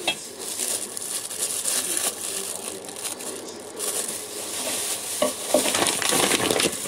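Thin clear plastic bag rustling and crinkling as gloved hands handle a raw pig's leg inside it, getting louder in the last two seconds as the bag is lifted.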